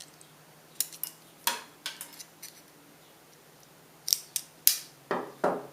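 Tin snips cutting the thin steel sidewall of a tuna can: a series of sharp metallic snips in two bunches, the first about a second in and the second near the end.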